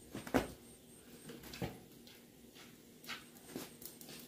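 A handful of short, sharp knocks and clicks, the loudest about a third of a second in, a few more spread through the rest.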